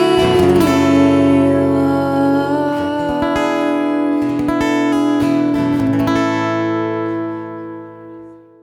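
Acoustic guitar strumming the song's ending, with a few strokes and then a final chord left to ring and fade out near the end.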